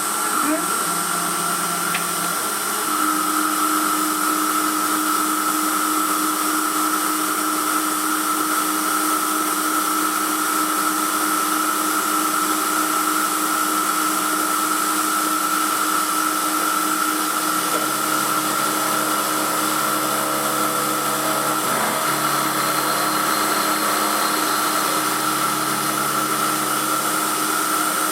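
Emco F1 CNC milling machine running with a 6mm ball-nose cutter in the spindle: a steady motor whine that steps up slightly in pitch about three seconds in.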